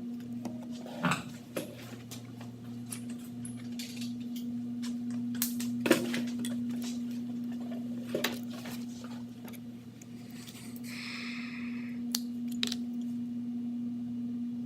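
A few sharp clicks and taps of small pieces and pins being handled on a hard work surface, with a short rustle about two-thirds of the way through, over a steady low electrical hum.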